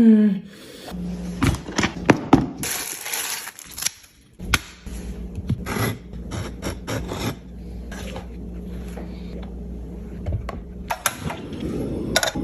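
Kitchen handling noises during food preparation: a string of sharp clicks and knocks with a short burst of hiss about three seconds in, over a steady low hum.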